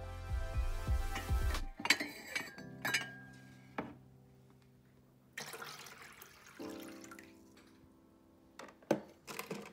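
Background music that stops and restarts, with ceramic mugs clinking and knocking against each other as a mug is lifted off a cupboard shelf, a few sharp clinks about two to four seconds in. A few more knocks come near the end.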